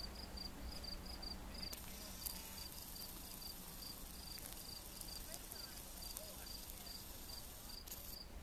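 Insect chirping steadily in a high, even rhythm, about four chirps a second, with a faint high hiss that starts about two seconds in and stops near the end.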